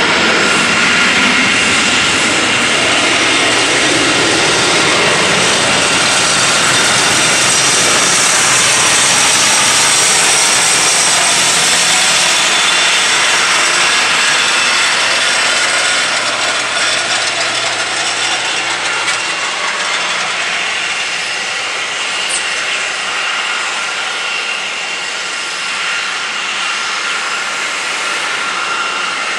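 Helibras AS350 B3 Esquilo helicopter's Turbomeca Arriel 2 turboshaft engine running on the ground: a steady turbine whine over a rushing noise, easing slightly in level about halfway through.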